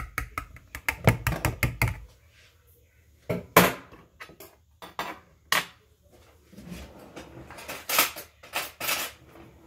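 Wire whisk clicking rapidly against a bowl as it beats batter for about two seconds, followed by scattered knocks and clatter of dishes and utensils.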